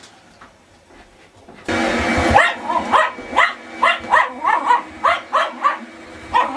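A vacuum cleaner switches on suddenly after a quiet start and runs with a steady hum, and a Welsh terrier barks at it over and over, about three barks a second.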